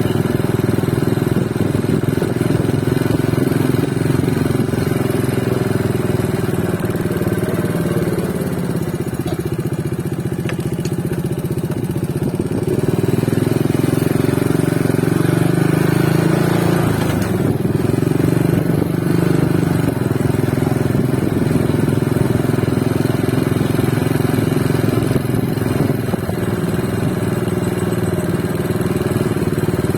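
Motorcycle engine running steadily, its pitch rising and falling a few times midway.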